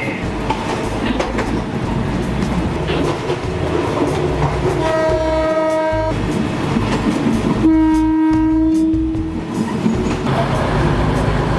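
Mae Klong Railway local train running, heard from inside a carriage with open windows: steady rumble and rail clatter. The horn sounds twice, once about five seconds in and again, lower in pitch and a little longer, shortly after.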